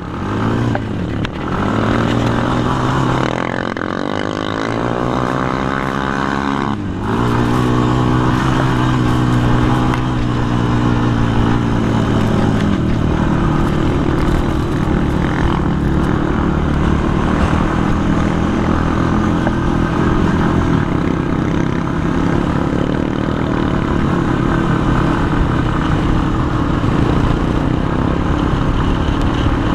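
Sport quad (ATV) engine under way, its revs rising and falling over the first few seconds with a sudden drop in pitch about seven seconds in, as at a gear shift, then holding steady at speed. Wind rushes over the microphone.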